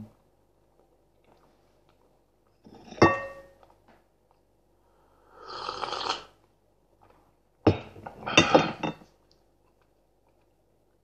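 A ceramic mug clinks sharply about three seconds in. A slurping sip of tea follows around the middle, then another clink and a burst of noisy sipping near the end, with quiet gaps between.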